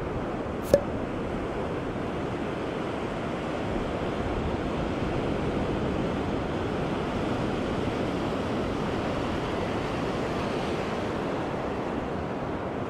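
Surf washing onto a sandy beach with wind buffeting the microphone, a steady rushing noise. A single sharp click about a second in.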